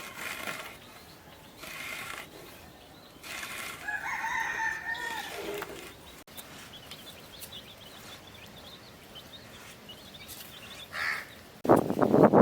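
A rooster crowing once, one long call with a falling end, among a few softer broad noises, with faint small-bird chirps after it. A loud rough noise starts near the end.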